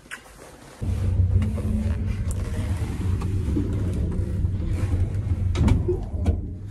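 Old lift car travelling: a steady low rumble and hum that sets in about a second in, with a few knocks near the end.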